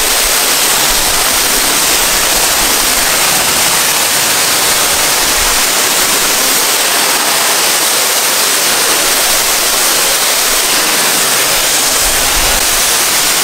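Pressure washer wand spraying a steady high-pressure jet of water onto exposed-aggregate concrete, a constant hiss, rinsing off an acid rust remover.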